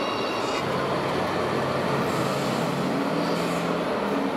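Radio-controlled model truck running: a steady noisy rumble with a low hum that shifts up and down in pitch from about a second in, and a high whine that stops within the first second.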